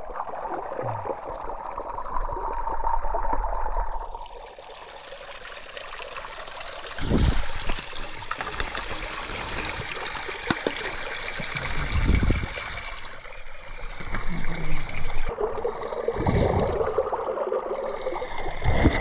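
Spring water dripping and trickling from a mossy rock wall and splashing into a pool and into a bottle held under the drops, with a few dull knocks from handling.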